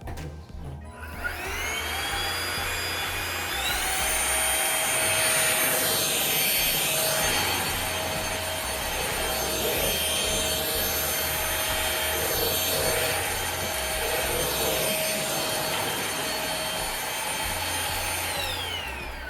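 Cordless vacuum cleaner's motor switched on, its whine rising in pitch and stepping up once more a few seconds in. It runs steadily, then winds down near the end.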